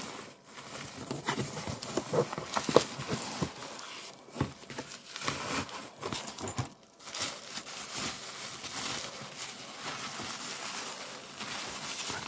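Bubble wrap and packing material crinkling and rustling as it is pulled out of a cardboard box and unwrapped by hand, with many small clicks and handling knocks, busiest in the first few seconds.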